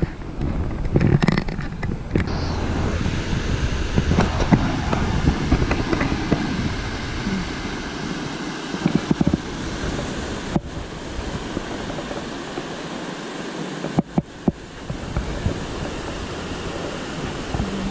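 Rushing water from a rocky creek cascade: a steady, noisy rush, with wind buffeting the microphone. A few sharp knocks stand out above it.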